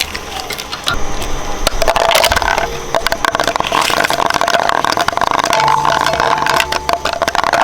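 Shredder's rotating blades crunching through an object: a dense, continuous crackle of breaking pieces over a steady motor whine.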